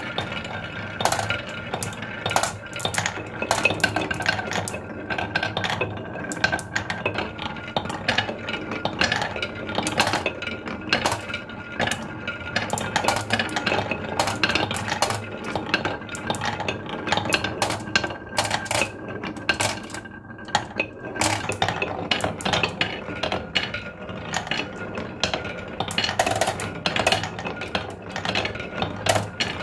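Many marbles rolling down wooden marble-run tracks: a continuous rolling rattle with dense, irregular clicks and clacks as they run through the zigzag curves, a funnel bowl and chutes.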